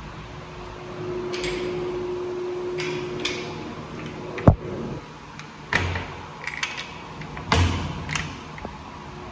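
Toilet stall partition door and its metal slide-bolt latch being handled: a run of knocks and metallic clicks, with one sharp knock about four and a half seconds in as the door swings to, then the latch clacking as the bolt is slid.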